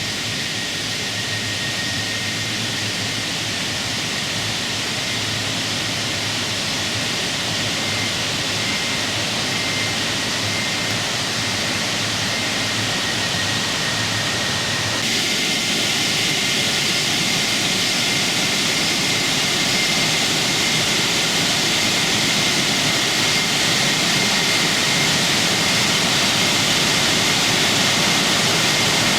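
A waterfall running full after good rains: a steady roar of falling water that grows slowly louder, its hiss turning brighter all at once about halfway through.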